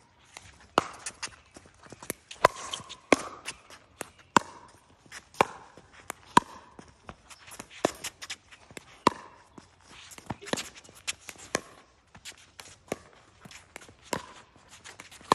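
A pickleball doubles rally: paddles hitting the plastic ball with sharp, ringing pops about once a second, sometimes two close together, with players' footsteps on the hard court.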